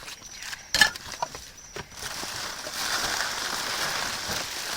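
Items being handled and knocked about while rummaging through a dumpster: a sharp knock about a second in and a few light clicks, then a steady hiss.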